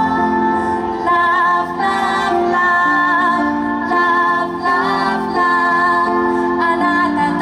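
A woman singing a pop song over an instrumental backing, holding long notes with a wavering vibrato.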